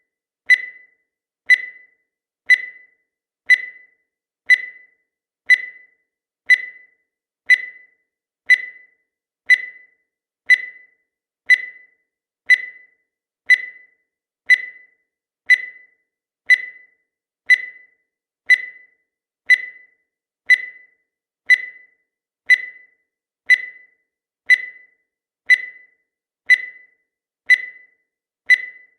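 Countdown timer sound effect: a short, sharp, high-pitched tick once every second, each dying away quickly, at an even pace.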